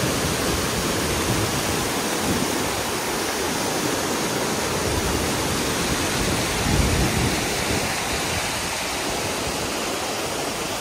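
Rainwater runoff rushing steadily down a rocky mountain trail, with an uneven low rumble underneath.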